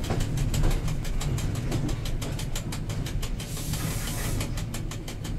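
A train running, heard from the driver's cab: a steady low rumble with rapid clicking of the wheels over rail joints and switches, and a short hiss about three and a half seconds in.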